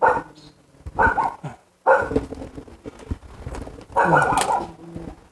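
A dog barking repeatedly, with four or five loud barks about a second apart.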